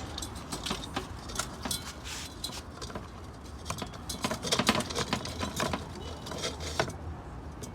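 Metal clinking and scraping as the C clutch pack of a ZF 8HP automatic transmission is worked by hand into the gearbox housing, with a close cluster of clicks about four to five seconds in.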